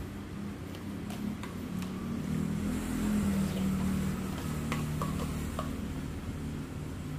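A low droning hum that swells toward the middle and eases off again, with a few light clicks of a metal spoon against a plastic jelly cup.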